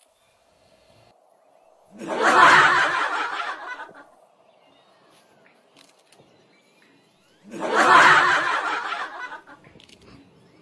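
Two bursts of laughter, each about two seconds long and about five seconds apart, the second much like the first.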